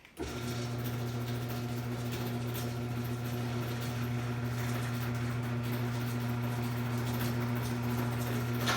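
Garage door opener motor starting with a click and running with a steady low hum, driving the trolley along the rail to re-engage the door after the emergency release.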